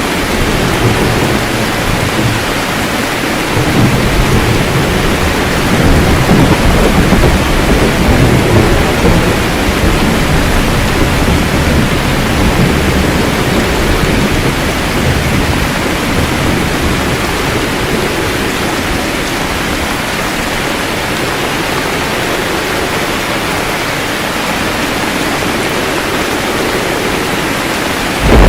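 Steady rain hiss with a low, rolling thunder rumble that swells about four seconds in and fades away over the next several seconds.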